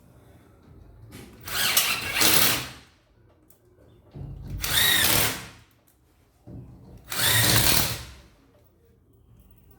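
Power drill driving screws in three runs of about a second and a half each, its motor whining under load, with short pauses between.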